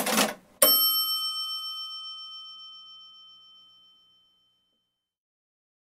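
A short noisy swish, then a single bell ding about half a second in that rings on and fades away over about three seconds.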